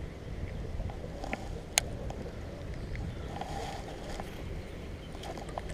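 Quiet ambience aboard a fishing boat: a low steady rumble, with one sharp click a little under two seconds in and a few fainter ticks.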